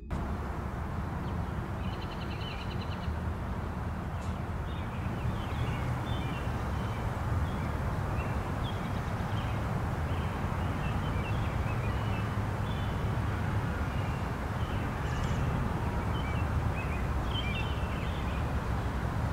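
Small birds chirping in short, scattered calls over a steady low rumble of background noise.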